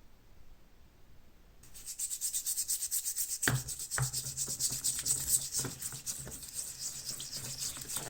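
Rapid back-and-forth scrubbing or brushing of rusty steel lock parts, starting about two seconds in, with a few knocks of the parts about halfway through.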